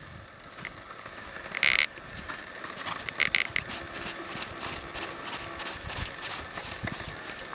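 Horse moving under a rider on a sand arena: irregular hoofbeats and tack rattle, with two short, louder bursts of noise about two and three seconds in.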